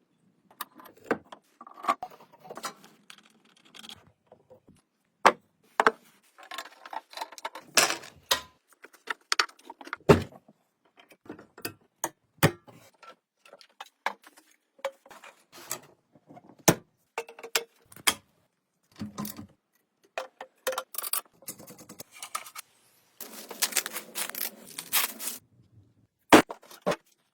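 Small metal parts and hand tools clinking and knocking in an irregular run of sharp taps, a few ringing briefly. There is a stretch of scraping about 23 seconds in.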